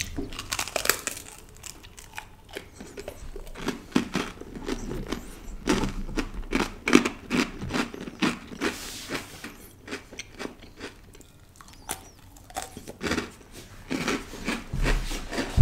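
Close-miked chewing: a person biting and crunching food, with irregular crisp crackles and clicks.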